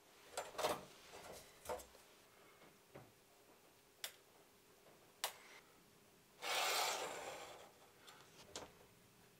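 Layout tools being handled on a steel layout table: light taps and clicks as a steel straightedge and square are set down and shifted, two sharp clicks a second apart, and about six and a half seconds in a scraping rub of about a second along the steel table top.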